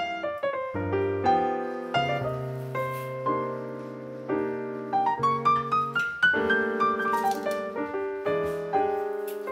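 Background piano music: a melody of quick notes over low held bass notes.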